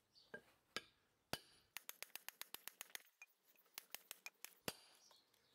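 Faint hammer blows on the end of a galvanized steel pipe lying on a tree-stump anvil, flattening it: three spaced strikes, then a quick, even run of about ten blows in just over a second, then a few more scattered strikes, some with a short metallic ring.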